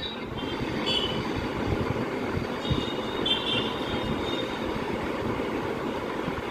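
Steady hubbub of a large crowd gathered in a street, with a few brief high-pitched calls or whistles about one and three seconds in.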